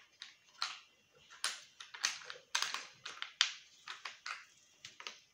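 Wooden Cuisenaire counting rods (regletas) clacking against each other and the wooden box as a hand rummages through them: a dozen or so light, irregular clicks.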